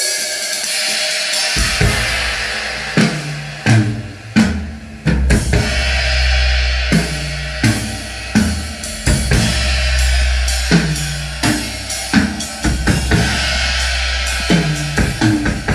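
Drum-heavy music with deep bass played as a sound test through one amplifier driving eight speakers: four Jackhammer woofers, two JBL subwoofers and two Crown horn tweeters. The deep bass comes in about a second and a half in, under repeated kick and snare hits.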